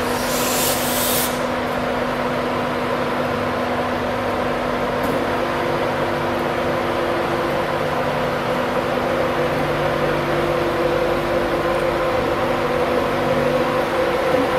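Class 91 electric locomotive running slowly, its equipment humming steadily with several held tones that shift about five seconds in. A hiss of air sounds in the first second or so.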